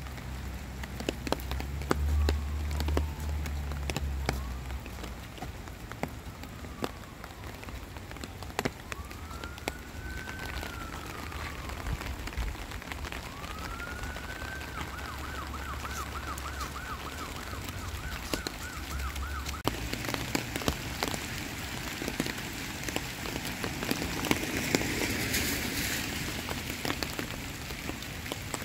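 Steady rain with raindrops tapping close by. Under it, an emergency-vehicle siren wails in slow rising and falling sweeps, switches to a rapid yelp, and stops about twenty seconds in. A low rumble runs under the first part, and the rain hiss grows heavier after the siren stops.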